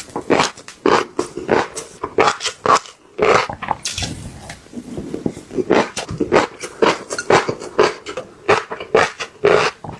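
Close-up crunching and chewing of fish roe: sharp, irregular crunches, several a second, with brief pauses.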